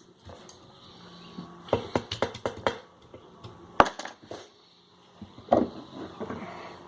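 Irregular metal clinks and knocks of a valve spring, compressor and hand tools being handled on a small-block Chevy cylinder head, with a cluster of clicks about two seconds in and one sharp clack just before the four-second mark.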